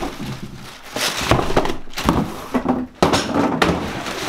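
A cardboard shoe box and its paper packaging being handled and opened, giving irregular rustling with several knocks, one sharp knock about three seconds in.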